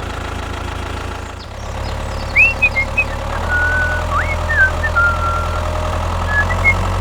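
Vehicle engine idling with a steady low hum; about a second and a half in, the note dips briefly and then settles a little differently. From about halfway through, short whistled chirps and rising and falling glides come in over it.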